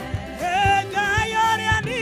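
Live gospel music: a woman's lead voice comes in about half a second in and sings long, wavering held notes over a church band's drums and bass.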